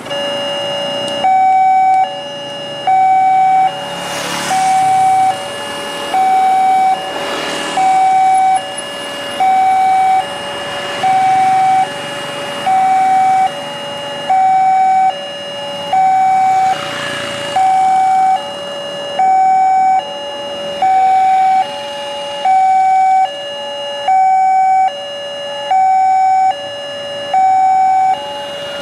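Railroad level-crossing alarm sounding as the warning lights flash and the barrier arms lower, warning of an approaching train: an electronic two-tone signal alternating high and low, each tone held a little under a second. It starts right away, and a few motorbikes pass by.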